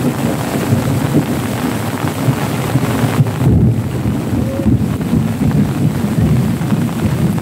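Heavy rain pouring down, with a loud, unbroken low rumble under it.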